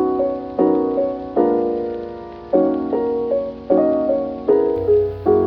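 Soft background music: piano or electric-piano chords struck at an even pace, each fading before the next, with a low bass note coming in near the end.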